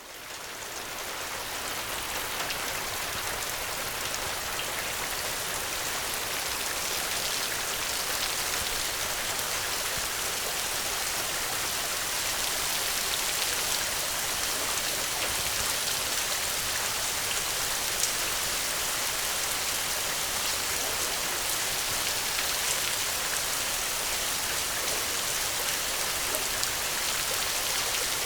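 Steady rain falling on the ground, an even hiss with scattered individual drop ticks, fading in over the first couple of seconds.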